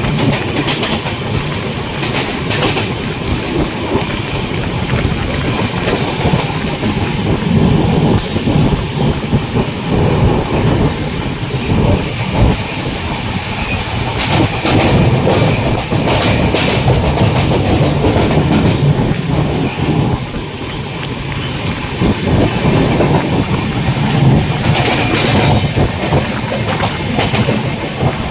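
Passenger train running at speed: a steady rumble of wheels on the track, with clacks as the wheels pass over rail joints.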